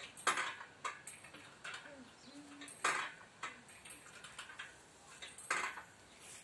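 Small plastic ball clicking and clattering on concrete paving stones as a kitten bats it about: about five sharp knocks, unevenly spaced.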